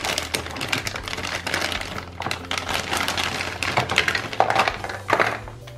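Thin clear plastic bag crinkling and crackling irregularly as Play-Doh cans are handled and pulled out of it.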